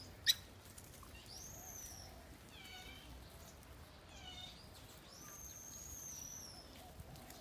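Baby macaque crying: several faint, high-pitched, drawn-out wailing calls of a second or two each, with shorter falling cries between them.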